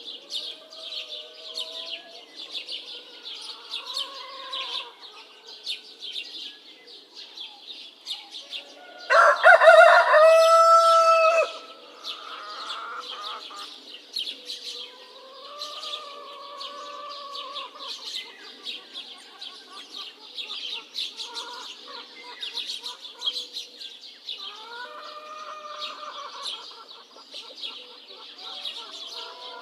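A rooster crowing loudly once, about nine seconds in, with fainter crows from other roosters now and then, over a constant chorus of small birds chirping.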